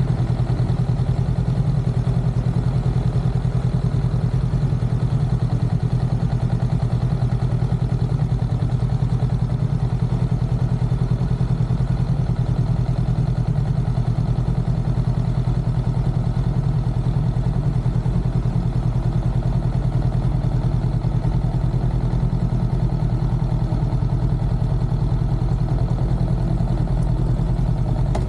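Motorcycle engine idling steadily with an even low pulse, the bike standing still in traffic.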